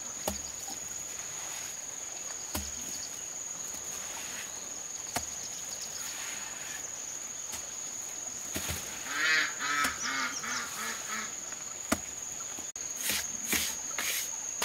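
A waterfowl gives a quick run of repeated calls about nine seconds in, over a steady high insect buzz. A few single sharp knocks come and go.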